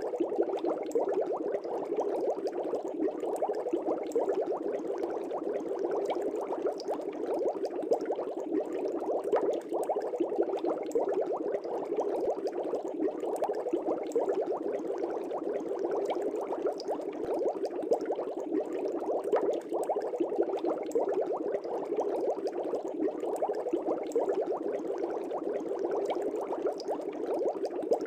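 Air bubbles streaming up through an aquarium, a steady dense bubbling and gurgling of many small pops that does not let up.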